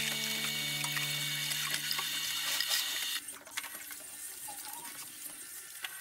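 Kitchen tap water running into a sink, with light clinks of dishes. The water stops abruptly about three seconds in, leaving quieter household clatter. A held musical chord fades out in the first second or two.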